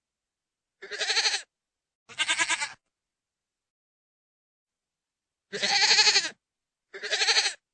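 A goat bleating four times in two pairs: two calls about a second in and two near the end. Each bleat lasts under a second and quavers, with complete silence between the calls.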